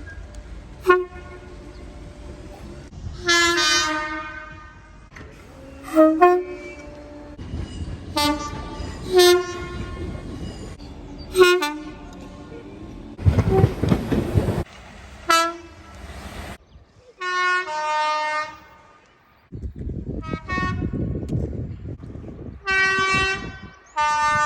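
A string of separate train horn blasts, some short toots and some held for over a second, each starting and stopping abruptly. Twice the horns give way to a loud rushing stretch with no pitch to it.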